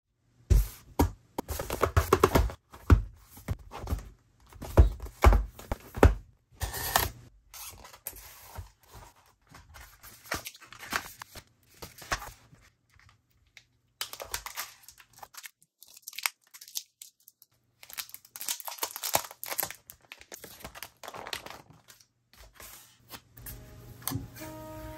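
Hands opening a phone's retail box: packaging tearing and plastic crinkling, broken up by sharp taps and knocks of the box and its parts being handled and set down, most of them in the first several seconds. Soft music begins near the end.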